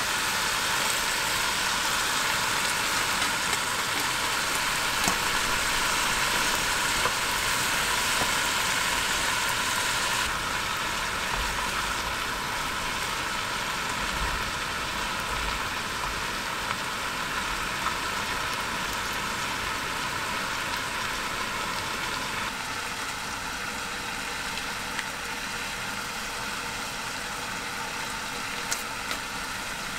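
Green peppers, mushrooms and meat sizzling in a mestin mess tin over a small gas stove as they are stirred with chopsticks. The sizzle eases about a third of the way in and again after about twenty seconds. Near the end there is a short crinkle as a small packet is opened.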